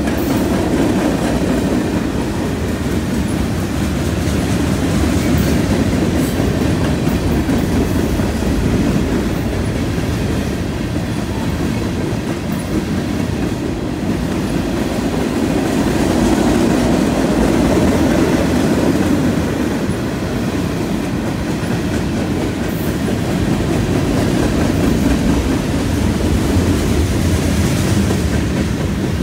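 Freight train of tank cars and covered hopper cars rolling past: steel wheels running on the rails in a continuous rumble that swells and eases gently every several seconds.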